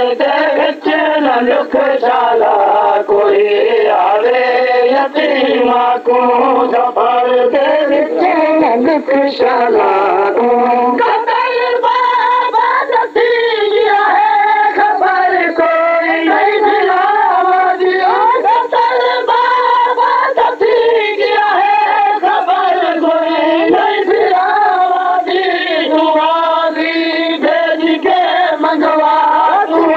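Noha, a Shia mourning lament, sung by a male reciter in a slow, chanted melody with the pitch bending from note to note. The recording is old and dull, with no high end.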